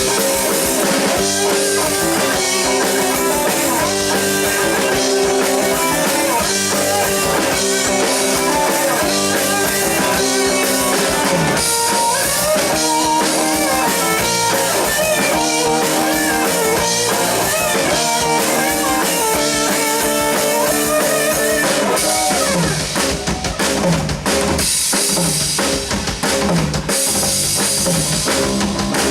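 A rock band playing an instrumental passage with no vocals: guitar lines over bass and a drum kit. Near the end the melody thins out and the drums come to the fore, with kick and rimshot hits.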